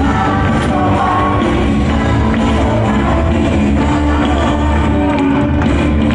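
Band music with singing and a strong, steady bass line, playing loudly without a break.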